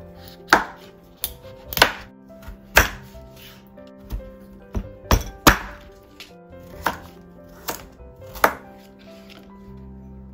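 Chef's knife cutting through raw kabocha squash and knocking on a wooden cutting board: about a dozen sharp knocks at an uneven pace, roughly one a second.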